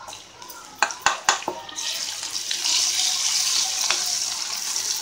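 A spoon taps sharply on a stainless steel pan four times, then about two seconds in a loud, steady sizzle starts as sliced onions and ginger-garlic paste fry in hot oil while being stirred.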